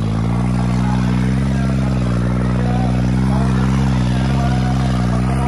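Diesel tractor engine running hard under heavy load while dragging a weighted pulling sled, a steady deep drone that wavers slightly in pitch.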